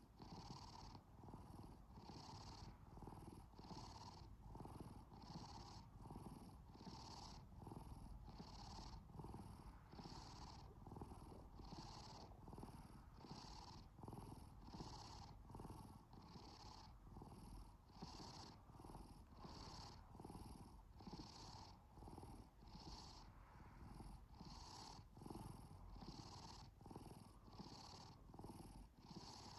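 A sleepy domestic cat purring faintly and steadily, the purr rising and falling with each breath a little faster than once a second.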